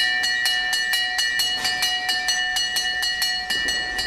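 Small hand-struck bell on an iron stand rung rapidly, about four to five strikes a second, each strike ringing on. The strikes stop about three and a half seconds in and the ring dies away.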